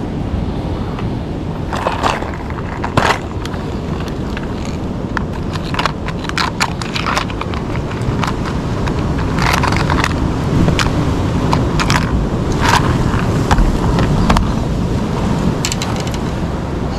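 Vehicle in motion: a steady low rumble with scattered knocks, rattles and crackles throughout, the sharpest around three seconds in and again near the middle.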